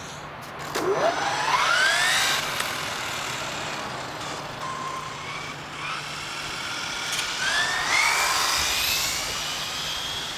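Traxxas Slash 4x4 RC car's brushless electric motor and drivetrain whining as the car accelerates hard. The high whine rises steeply in pitch about a second in, holds a steadier tone, then climbs again in a second run-up near eight seconds.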